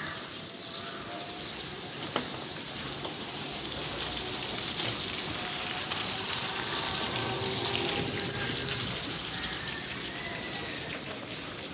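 Steady rain falling on a wet street, a little heavier in the middle.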